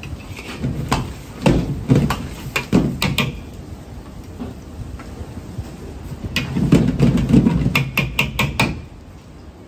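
Metal ladle striking and scraping a carbon-steel wok as egg and tomatoes are stir-fried over a gas burner, with the burner's low rumble underneath. A cluster of clanks in the first three seconds, a lull, then a quick run of clanks from around six to nine seconds in.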